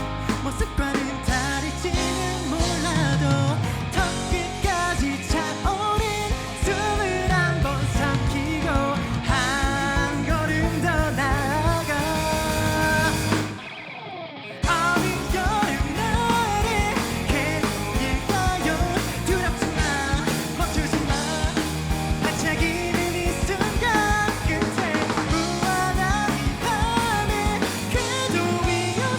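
A rock band playing a song, with a lead vocal over drum kit, bass and other instruments. About halfway through, the band drops out for about a second, then comes back in.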